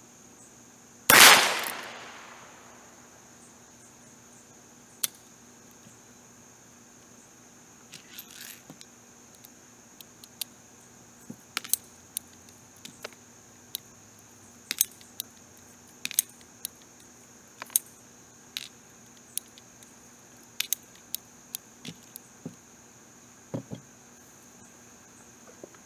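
A single shot from a .22 Heritage Rough Rider revolver about a second in, then a long run of small, sharp clicks and ticks. Crickets chirr steadily in the background.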